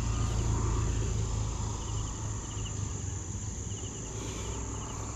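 Night insects: a steady high-pitched insect drone with short cricket chirps repeating every second or so, over a low rumble that fades after the first couple of seconds.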